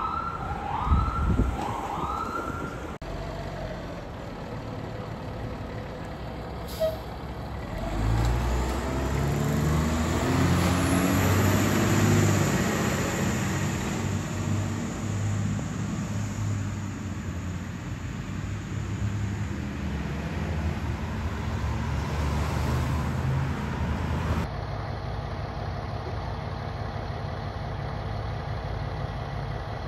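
Three quick rising siren whoops, then a fire engine's diesel engine pulling away, its pitch climbing in steps as it accelerates through the gears. Near the end the sound cuts to a fire engine's engine idling steadily.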